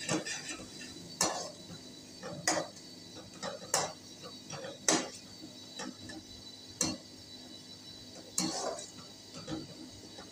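Metal spoon stirring thick onion-tomato masala in a metal pot, scraping through the paste and knocking against the pot about once a second.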